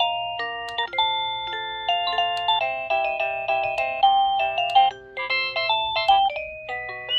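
Avantech wireless doorbell receiver playing its electronic chime melodies through its small speaker, one short synthesized tune after another of quick stepped notes as the tones are cycled through. A brief break about five seconds in, then the next tune starts.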